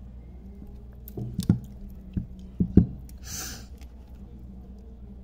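Handling of jewellery pliers and a small metal chain on a tabletop: a few soft knocks and clicks, the loudest a little under three seconds in, then a brief rustle. A low steady hum underneath.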